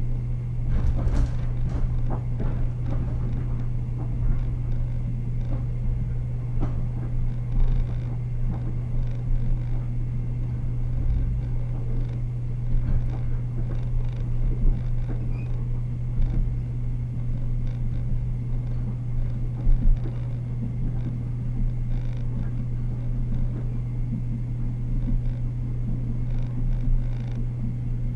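Cabin noise aboard a Taiwan Railway EMU100 electric multiple unit on the move: a steady low hum over a wheel-on-rail rumble, with occasional short knocks.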